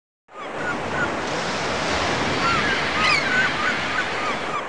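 Ocean surf and wind with many seabirds giving short, high cries over it; it fades in just after the start.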